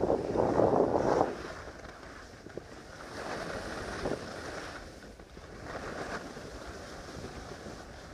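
Skis sliding and scraping over snow, rising and falling in rushing swells, with wind buffeting the microphone; the loudest swell is in the first second.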